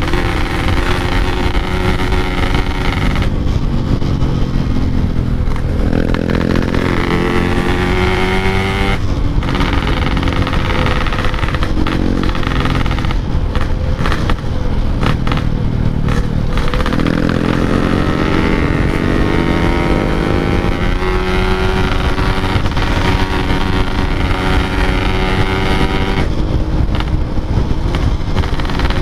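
Yamaha RX-King 135cc two-stroke single with a Packing Power expansion exhaust, under way: the engine note drops off and climbs again several times as the rider eases off and accelerates through the gears, with the steepest rises about a quarter and about two thirds of the way in.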